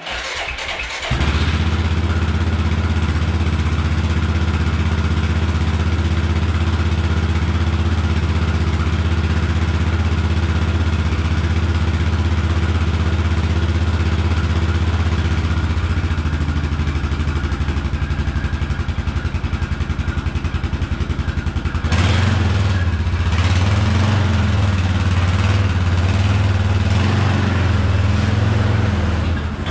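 ATV engine starting up, catching about a second in and then idling steadily. About 22 seconds in it is revved, unevenly, as the ATV pulls away.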